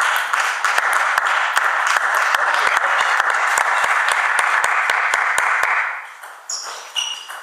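Applause with many sharp individual claps, stopping about six seconds in, followed by a couple of table tennis ball bounces near the end.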